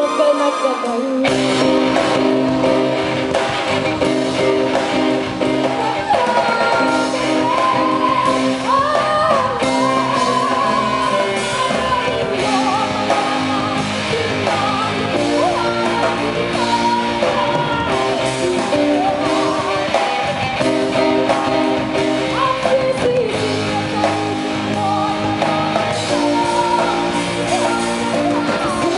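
Live rock band playing: a woman singing over electric guitar, keyboard and drum kit, with the full band coming in about a second in.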